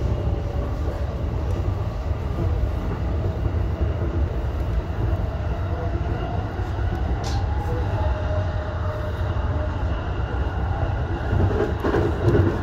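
Electric commuter train running on its rails, heard from inside the train: a steady low rumble with a faint whine, and one sharp click about seven seconds in.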